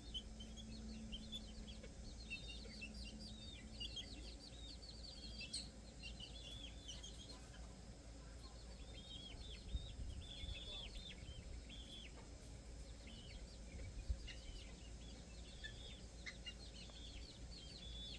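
Eight-week-old Serama bantam chicks peeping in quick runs of short, high-pitched calls, over a low background rumble. Two soft thumps come in the middle.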